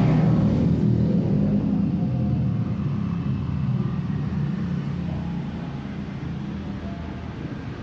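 A motor vehicle's engine running steadily and gradually fading away, as if driving off.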